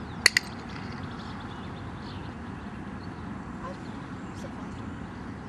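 Two sharp hand claps in quick succession about a quarter second in, the start signal for a reaction-time test, followed by steady background noise.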